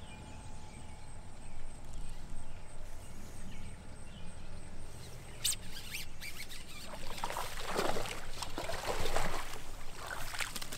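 A hooked bass thrashing and splashing at the pond's surface as it is reeled in and pulled to the bank, loudest in the last few seconds. A sharp click about five and a half seconds in.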